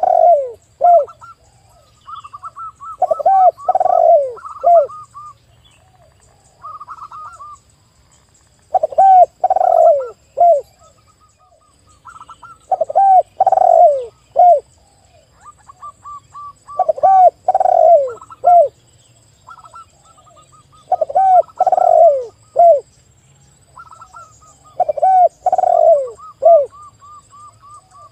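A spotted dove and a zebra dove cooing in turn. Loud groups of three or four deep, falling coo notes come about every four seconds, and between them run quicker series of higher, softer notes.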